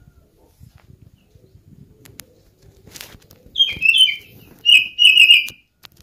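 Oriental magpie-robin (kacer) calling in two short bursts of falling, cat-like notes about three and a half seconds in. Before that come faint rustles and ticks, with one sharp tick just before the calls.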